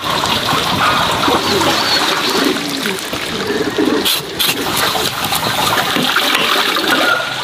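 Water splashing and trickling, with a sharper scraping or knocking noise about four seconds in.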